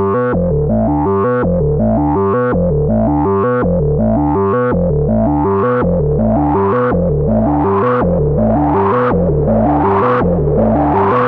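Moog Subsequent 25 analogue synthesiser playing a sequenced, repeating low bass pattern on its 'Rez Grool' patch, with a resonant filter sweeping upward about once a second. About halfway through, the sweeps open brighter and reach higher.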